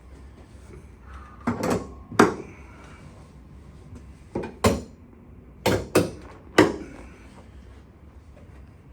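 Chiropractic adjustment on a treatment table: a run of about eight sharp knocks, several in quick pairs, as the doctor thrusts and the table takes the impacts.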